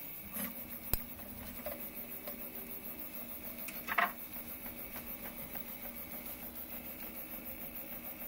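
Prusa i3 MK3S 3D printer running a PETG print: the stepper motors and fans whirr in a quick, even pulse as the print head moves back and forth. There is a sharp click about a second in and a short scrape around four seconds in.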